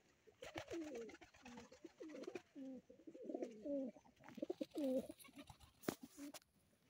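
Flock of domestic pigeons cooing, many low bending calls overlapping one another, with scattered short clicks and a sharp click about six seconds in.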